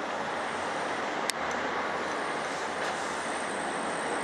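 Steady road-traffic noise from a city street intersection, with one sharp click about a second in.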